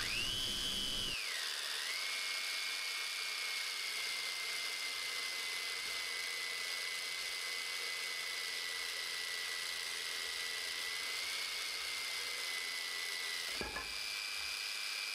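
775 DC electric motor driving a 3D-printed planetary gearbox while lifting a heavy load of about 40 kg: a steady high whine. The whine drops in pitch about a second in as the load comes on, then holds. Near the end there is a brief knock, and the whine rises slightly.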